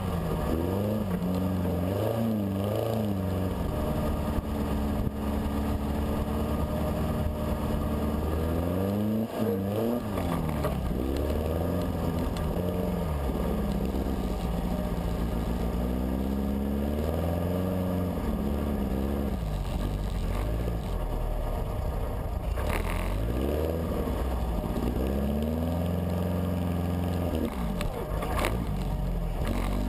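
Dune buggy engine heard from on board, revving up and down over and over as it drives across sand dunes, its pitch rising and falling with the throttle. A couple of short sharp knocks come near the end.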